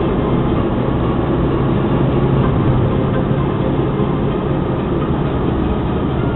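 Steady road and engine noise inside a Jaguar X-Type's cabin as it drives along a country road: an even rumble of tyres and engine with no sudden events.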